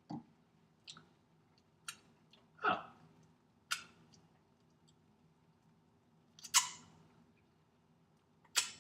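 Scattered sharp clicks and knocks of kitchenware being handled, with one longer scrape about two and a half seconds in and the loudest knock about six and a half seconds in, over a faint steady low hum.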